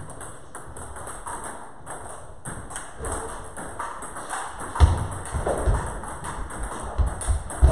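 Table tennis balls clicking off tables and paddles in rapid, uneven runs from several rallies in the hall, with a few heavy low thumps from about five seconds in and again near the end.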